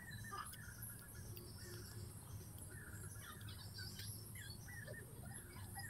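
Many short bird chirps over a steady high insect trill.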